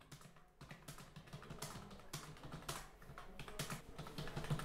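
Typing on a computer keyboard: keys clicking in quick, irregular succession, fading in from faint and growing louder.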